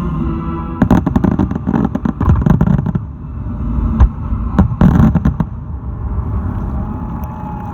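Aerial fireworks of a display finale bursting in rapid volleys of sharp bangs, a dense run in the first few seconds and another about four to five seconds in, then dying away to a low rumble.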